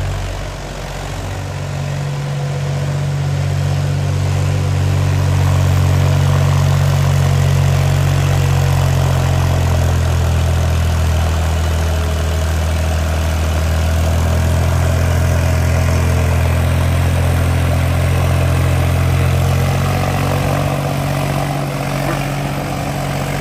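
Mahindra 265 DI tractor's three-cylinder diesel engine running steadily under load as it drives a six-foot rotavator tilling wet soil. The engine note dips briefly near the start, then settles into an even heavy hum.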